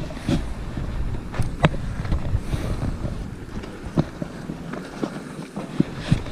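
Wind buffeting the microphone as a low rumble, with scattered scuffs and clicks from people walking on the path.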